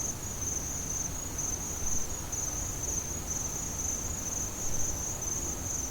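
An insect's high-pitched trill pulsing evenly without a break, over a low rumble.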